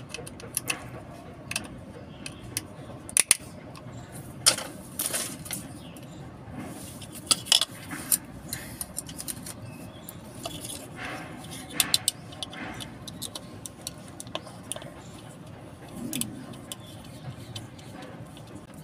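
Small screwdriver working the screws of a plastic three-pin plug top to open it: irregular clicks, scrapes and light metallic clinks as the plug and its parts are handled, with a few sharper knocks.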